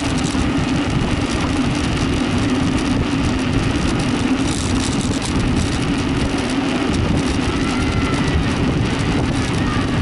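Steady wind and road noise on the microphone of a camera moving along the road, with a steady low drone underneath. A few faint high chirps come in near the end.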